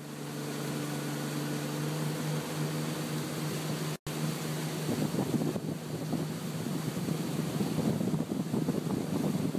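Motorboat engine running steadily under way, with wind noise on the microphone. The sound cuts out for an instant about four seconds in, and afterwards the wind noise is rougher and gustier.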